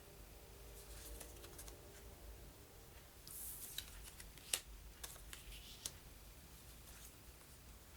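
Light handling of cardboard and paper game pieces: soft rustles and scattered small clicks, with a brief hiss a little past three seconds in and a sharper click about a second later.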